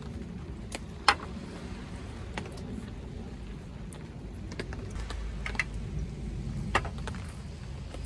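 Light handling knocks and clicks on a slatted wooden camp table: a wooden mug set down with a sharp knock about a second in, then a few lighter clicks and rustles as a jar and a tea bag's paper wrapper are handled, over a steady low background rumble.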